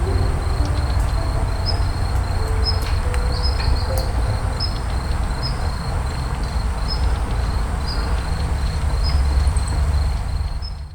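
Outdoor ambience: an insect chirping in a fast, even, high-pitched trill, with a short higher note repeating about once a second above it, over a steady low rumble.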